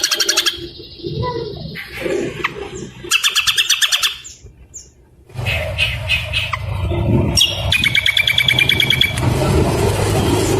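A songbird calling in rapid chattering trains of quick repeated notes: a short burst at the start, another about three seconds in, and a longer one near the end. A low background rumble comes in about halfway through.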